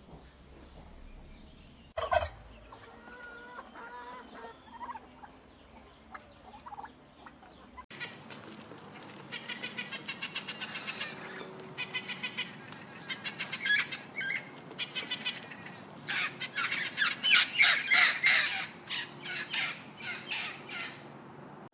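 Bird calls: a sharp single call about two seconds in, then softer calls, followed by bursts of fast rattling calls that grow loudest in the second half.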